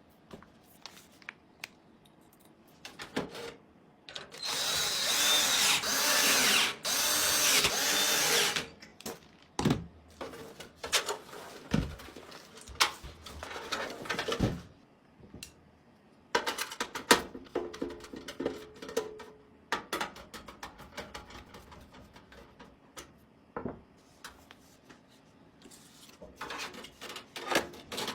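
Small electric drill-driver running in two bursts of about two seconds each, its whine wavering in pitch, about four seconds in. Scattered clicks and knocks of hard parts being handled fill the rest.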